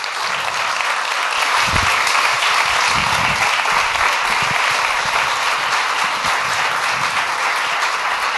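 Audience applauding steadily, a dense even clapping at the end of a talk.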